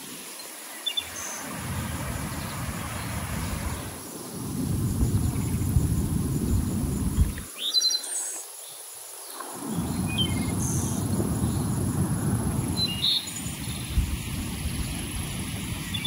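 Birds chirping now and then in short high calls over a low, unsteady rumble that comes and goes in stretches.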